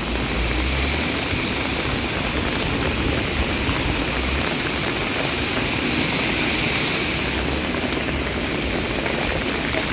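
Heavy rain and storm runoff rushing across the road and over street drain grates clogged with litter: a steady rush of water. A low rumble comes and goes.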